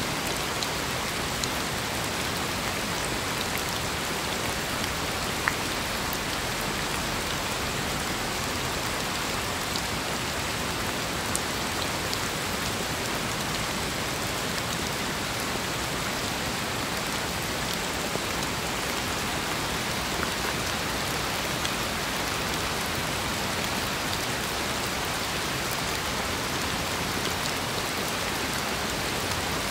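Steady rain falling: an even, unbroken hiss with scattered individual drops ticking, one a little louder about five seconds in.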